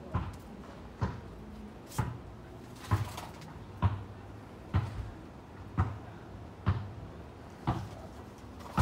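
Footsteps, evenly paced at about one a second.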